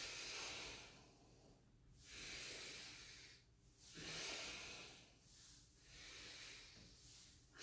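Faint, slow breathing in and out, about five breaths spaced roughly two seconds apart, paced with cat-cow spinal flexion and extension.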